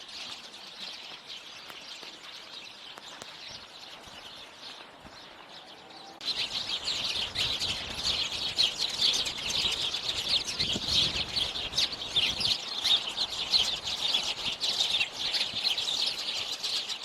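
Small birds chirping and twittering in a dense, rapid chorus of high calls. It is faint at first and becomes much louder from about six seconds in.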